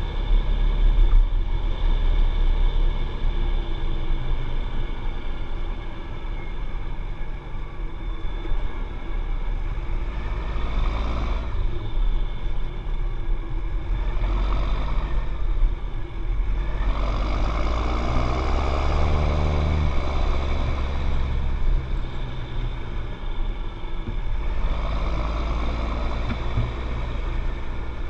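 John Deere 7710 tractor's six-cylinder diesel engine running with a deep rumble. It rises and falls in pitch and loudness several times, swelling about ten seconds in, again at the middle and near the end.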